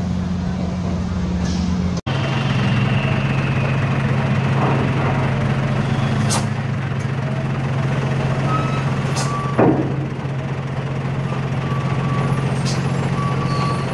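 Heavy diesel truck engine running steadily as a loaded truck drives down a ferry's ramp, with a brief loud burst about ten seconds in and intermittent high beeping in the second half.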